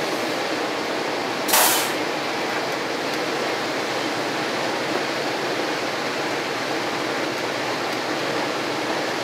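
Steady running noise of a train heard inside the driver's cab at speed, with one short, loud hiss about a second and a half in.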